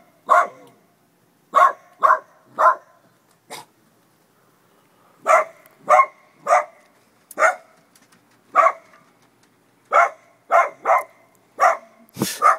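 A small dog barking repeatedly: about fifteen short, sharp barks, often in quick runs of two or three, with a louder one near the end. It is alert barking at a scarecrow in the yard.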